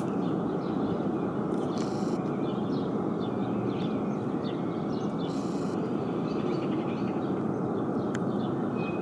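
Distant Ariane 5 rocket engine firing on its test stand, a steady even roar with no rise or fall, while small birds chirp over it.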